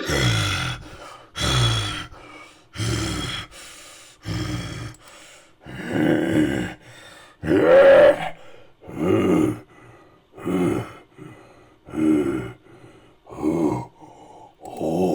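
Creature sound-effect vocalisations for an ape-like caveman: a string of about eleven deep grunts and groans, one roughly every second and a half.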